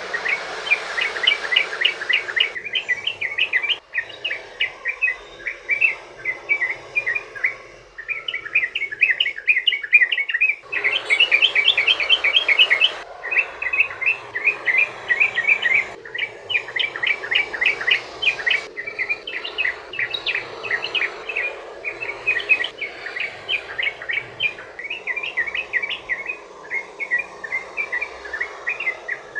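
Yellow-vented bulbul (trucukan) singing a long, fast run of short, bubbly chattering notes, several a second, with no break: the 'ropel panjang' song played as a lure to set other bulbuls singing.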